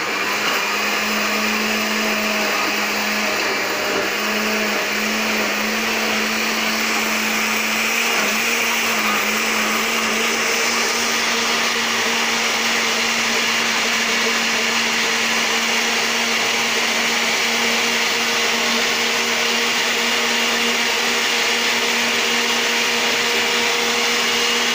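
Electric countertop blender running at full speed, pureeing chopped vegetables into a green smoothie. A steady motor whine with a hiss of churning liquid, its pitch wavering slightly during the first several seconds as the chunks break up, then running evenly.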